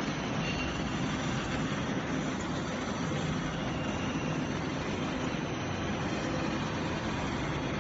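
Stainless-steel 3D swing mixer running, its drum swinging and tumbling, with a steady mechanical running noise and low hum.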